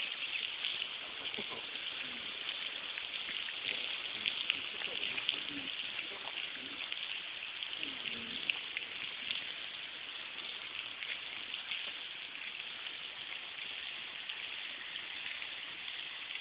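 A steady, crackling hiss of outdoor background noise, with faint low voices during the first half.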